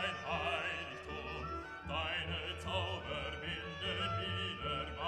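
Background music: a classical or operatic piece with a singing voice wavering in pitch over a steady low accompaniment.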